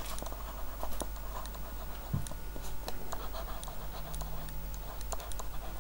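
Stylus tapping and scratching on a tablet screen while handwriting, a run of light, irregular clicks over a faint steady hum, with a soft low thump about two seconds in.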